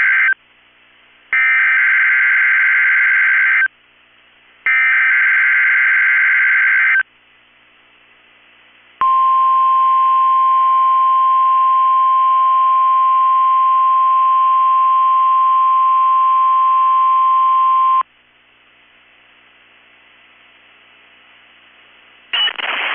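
NOAA Weather Radio Emergency Alert System test signal. It opens with the tail of one SAME digital header burst and then two more, each a couple of seconds long with short gaps between. After a pause the 1050 Hz warning alarm tone sounds steadily for about nine seconds and cuts off, leaving faint radio hiss.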